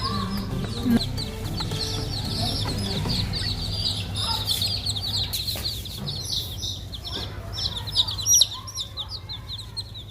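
Domestic chicks peeping continuously: rapid, high chirps, several a second, each falling in pitch. A couple of sharp taps stand out about a second in and again around eight seconds.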